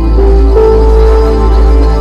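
Background music: slow ambient music with held notes over a deep steady bass drone.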